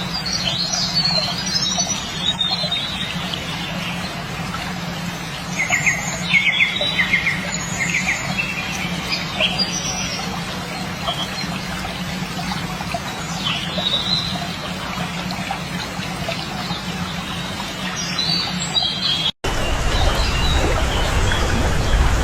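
Small birds chirping and trilling in short, repeated high calls over a steady background hiss. Near the end the sound breaks off for an instant and gives way to a louder, rougher noise.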